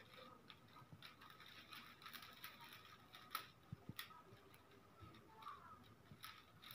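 Faint, scattered clicks of dry grass stalks being handled and pressed together as a broom is bound by hand, with a couple of sharper clicks about three and four seconds in.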